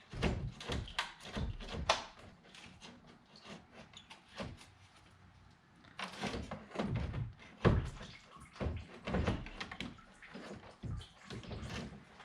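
BMW E90 radiator being wrestled out of the engine bay: an irregular run of knocks, thumps and scraping clicks as it catches on the surrounding parts, sparser in the middle and busier again in the second half.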